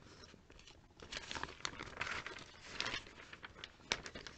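Glossy paper catalogue pages rustling and crinkling as they are turned and handled by hand, in uneven bursts with a few sharp crackles.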